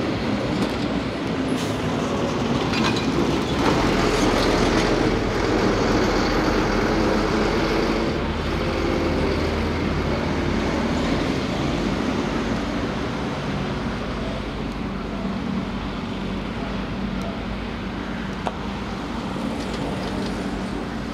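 Mercedes-Benz tipper truck's diesel engine running under load while its hydraulic tipper body lifts to tip asphalt: a steady low engine rumble, louder from about four seconds in and easing off later.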